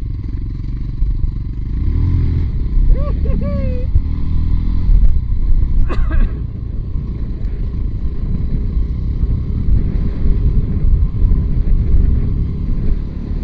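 Motorcycle engine running while riding off-road, with a heavy low rumble throughout.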